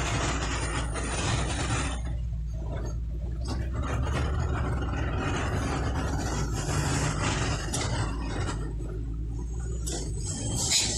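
Vehicle engine and road noise heard from inside the cab while driving in city traffic: a steady low hum under a wash of noise that rises and falls, with a sharp click near the end.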